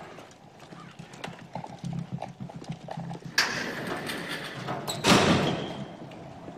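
Footsteps of several people in boots walking on a hard floor, a string of irregular knocks. Two louder, noisier knocks come about three and a half and five seconds in.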